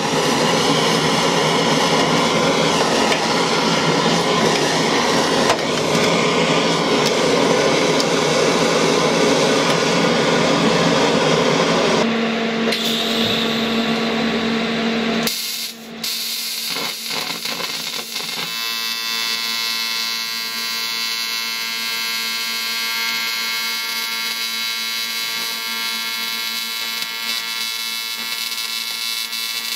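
Propane torch preheating an aluminium casting: a steady rushing flame. About halfway through it stops, a few clicks follow, and then a welding arc runs on the aluminium with a steady electric buzz made of many fixed tones.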